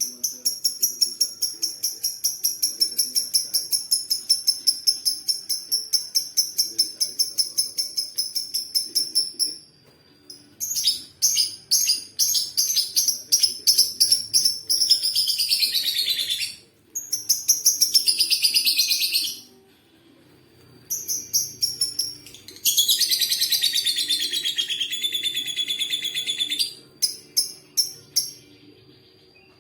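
Lovebird chattering in rapid high-pitched trills, the long 'ngekek' call. It opens with a steady run of about five sharp chirps a second, then after a short pause breaks into several bursts of faster chatter that slide down in pitch, the longest lasting a few seconds.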